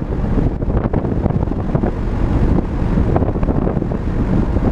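Steady rumble of road and wind noise from a moving car.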